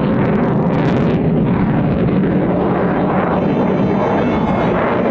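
Eurofighter Typhoon's twin EJ200 jet engines in full reheat: a loud, steady jet roar from the aircraft flying its display.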